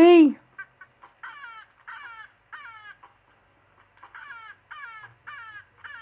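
A bird's crow-like cawing calls, each short and falling in pitch, repeated in a run of three and then a run of four about every half second, played through a laptop's speakers.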